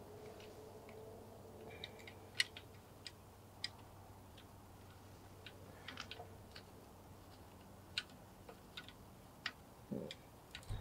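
Faint, irregular small clicks and taps of metal parts being handled while a screw is worked into place on a snowblower carburetor, the sharpest click about two and a half seconds in and another about eight seconds in.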